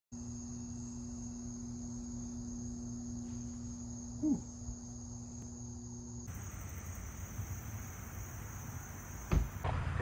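Steady high-pitched insect trill, with a low hum under it that stops about six seconds in. A short falling sound comes about four seconds in, and a dull thump comes near the end.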